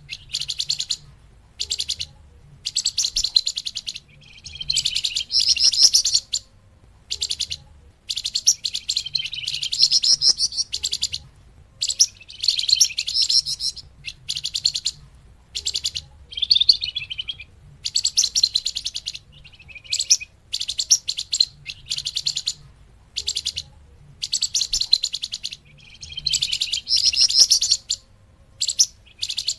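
Songbird known to Indonesian bird keepers as the 'flamboyan', calling in a lure recording. It gives rapid, high-pitched chattering chirps in repeated bursts of half a second to two seconds, with short pauses between them.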